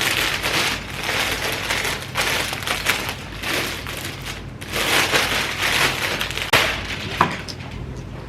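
Packaging rustling and crinkling in irregular handfuls as a parcel of clothes is unwrapped, with a couple of sharp clicks near the end.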